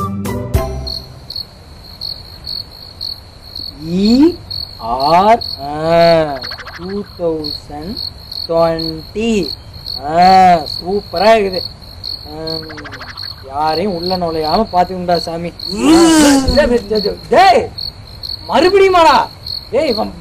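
Crickets chirping, a steady high chirp repeating about twice a second, as night-time background. From about four seconds in, a voice makes long, wordless sounds that rise and fall in pitch over it.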